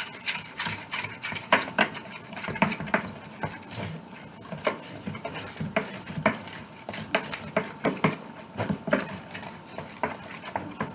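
Popsicle stick stirring white glue and baking soda in a bowl, scraping and knocking against the bowl in irregular strokes as the baking soda is mixed in to dissolve.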